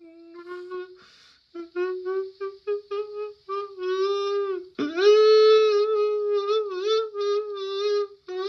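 A single melody line in a wind-instrument-like tone: a run of short detached notes, then about halfway through a sharp scoop up into a long held note with a wobble, followed by more short notes.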